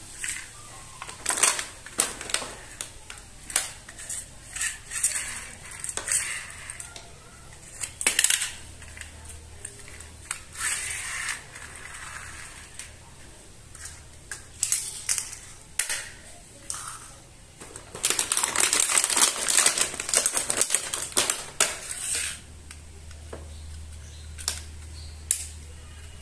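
Small plastic toy vehicles being handled and moved on a table: scattered clicks, taps and plastic rattles, with a few seconds of dense rapid clicking and rustling past the middle.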